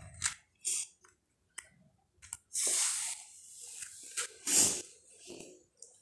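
Cardboard jigsaw puzzle pieces being handled on a paper sheet: a few light clicks and taps, then two longer rustling scrapes of paper and cardboard, about two and a half and four and a half seconds in.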